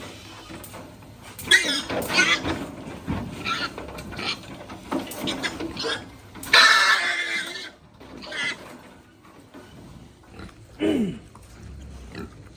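Pigs calling in a series of short, pitched cries, the longest and loudest about six and a half seconds in, and a low grunt falling in pitch near the end.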